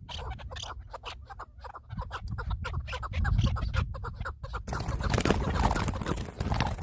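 Birds giving rapid, chattering calls. About two-thirds of the way in, a louder rustling noise takes over.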